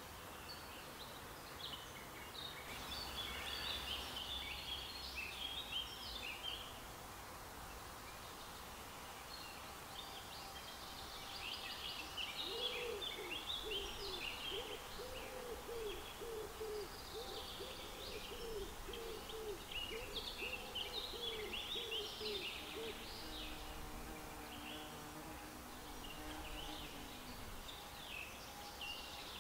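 Wild birds singing in bouts of high chirping, with a low call repeated in a quick series through the middle, over a steady outdoor background hiss.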